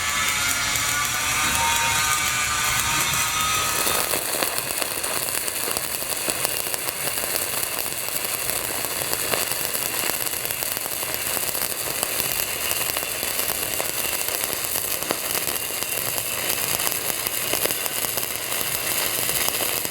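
Stick-welding arc of an 8010 cellulose electrode on steel pipe, crackling steadily with a dense spatter of fine clicks. For the first four seconds a wavering whine sits over it; it cuts off abruptly about four seconds in.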